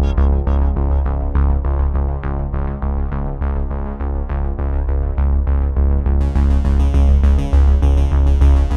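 Background music with a steady beat and repeated keyboard-like notes over a strong bass pulse; a brighter upper layer joins about six seconds in.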